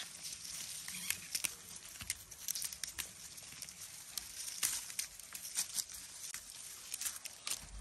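Leaves rustling and stems snapping as plums are plucked by hand from leafy branches, with many small irregular clicks and soft knocks of fruit handled among the pile in a wicker basket.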